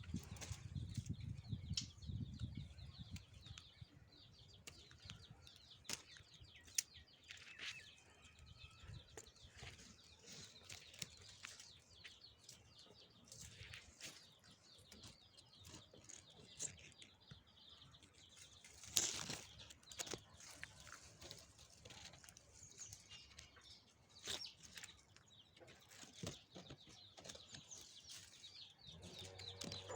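Faint, high cheeping of a newborn baby bird, with scattered rustles and sharp clicks; the loudest click comes about nineteen seconds in.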